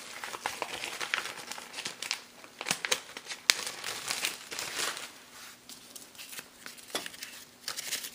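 Plastic sleeves handled as artist trading cards are taken out of them, in quick irregular crackles with one sharper click about three and a half seconds in.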